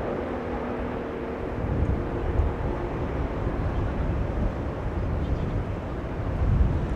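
Jet aircraft engines rumbling steadily, with a faint whine that fades out in the first couple of seconds.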